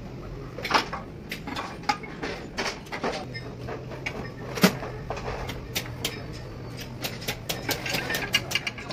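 Scattered light metallic clicks and taps as main bearing shells are handled and pressed into the saddles of a Nissan Bedford diesel engine block, with one sharper knock about halfway through.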